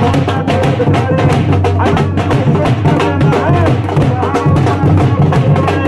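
Several dhol barrel drums beaten with sticks in a fast, steady rhythm.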